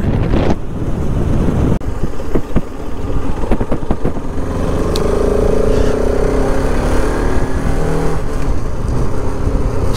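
Bajaj Pulsar RS 200 motorcycle engine running under way, with wind rushing over the helmet-mounted microphone.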